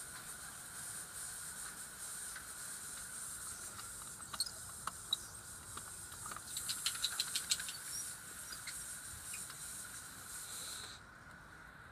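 Garden hose spraying water with a steady hiss that cuts off sharply about eleven seconds in. A quick run of clicks comes around the middle.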